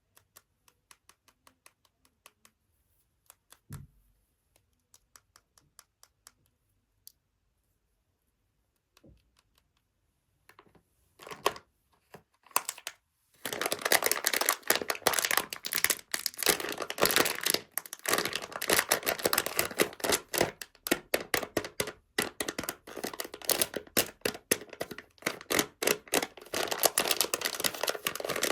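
Blind-bag toy packaging handled: scattered light taps and clicks at first, then from about halfway through a steady run of plastic wrapper crinkling and tearing.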